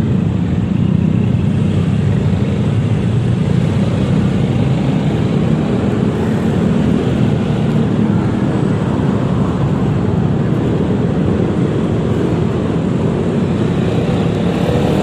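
Steady riding noise of a Yamaha XMAX 300 scooter: engine hum with road and wind rush, amid surrounding traffic.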